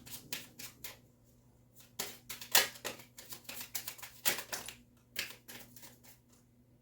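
A tarot card deck being handled and shuffled: an irregular run of crisp clicks and slaps of card against card, loudest in the middle of the stretch.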